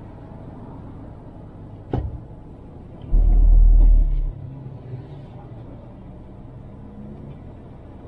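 Car cabin rumble while creeping forward in stop-and-go traffic. There is a single knock about two seconds in, then a loud, deep rumble lasting about a second.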